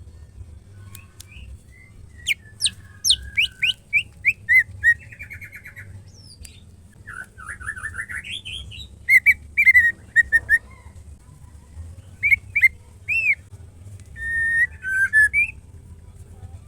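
White-rumped shama song: three bursts of loud whistled phrases, made of quick downward-sweeping notes, rapid trills and a rising run of notes, with short pauses between the bursts.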